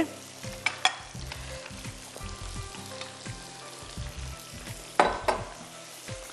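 Battered chicken pieces deep-frying in oil in a frying pan, a steady sizzle. A few light clicks come about a second in, and a louder knock comes about five seconds in.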